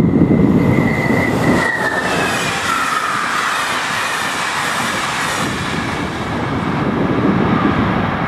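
Passenger express train passing close by at speed: a sudden rush as it arrives, then the rolling noise of wheels on rails with high squealing tones that slide down in pitch, fading as the train clears. Wind rumbles on the microphone before it arrives and again as it fades.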